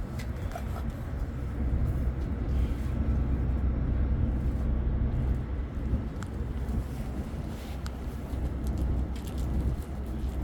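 Wind buffeting the microphone: a low, uneven rumble that swells and eases, strongest from about two to six seconds in, with a few faint ticks.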